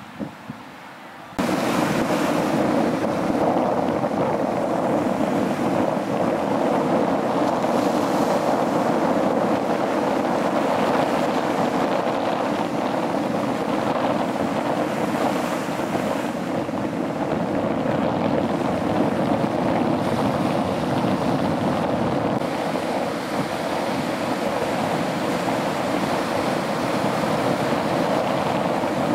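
Ocean surf washing in over rocks and a wooden jetty, a loud, steady rush of waves with wind on the microphone, starting abruptly about a second in.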